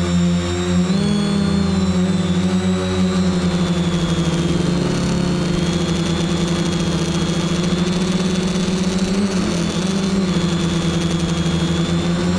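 Quadcopter's brushless electric motors and propellers whirring steadily in flight, as heard from the camera on board; the pitch wavers up and down a little as the throttle changes, dipping around the middle.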